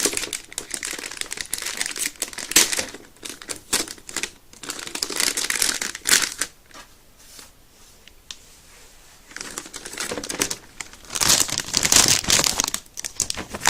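Crinkling and rustling of packaging as a computer motherboard is pulled out of its box, in irregular bursts with a quieter stretch in the middle.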